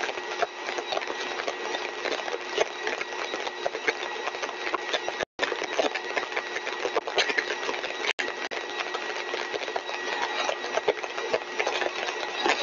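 Single-stage axial compressor rig (rotor and stator) running steadily at full design speed: a steady whine made of several fixed tones over a rush of airflow noise, with scattered crackling clicks. The sound cuts out for an instant twice.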